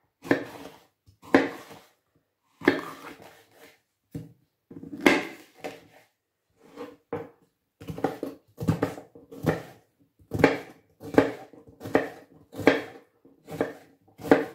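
Kitchen knife cutting a red bell pepper on a bamboo cutting board: a few separate slicing strokes first, then from about halfway a steady chopping, the blade knocking the board about once or twice a second as the strips are diced.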